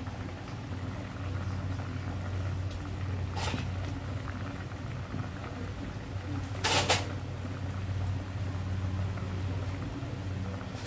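Fish soup boiling in a glass pot: steady bubbling over a low hum, with a short sharp noise about three and a half seconds in and a louder one just before seven seconds in.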